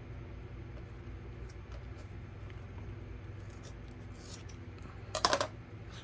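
Steel craft scissors trimming jute rope: faint snips, then a brief, loud burst of scissor noise about five seconds in, over a low steady hum.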